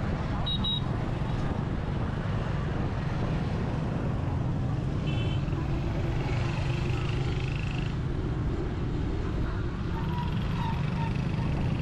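Steady street traffic noise, a constant low rumble of passing vehicles heard from a moving bicycle.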